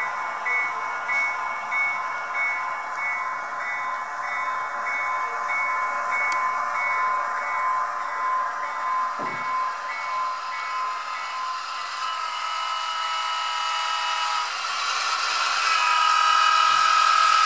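Sound of an H0 model diesel locomotive: the engine runs steadily while a bell rings about twice a second. The bell stops about eleven seconds in, and a steadier, higher tone then grows louder toward the end.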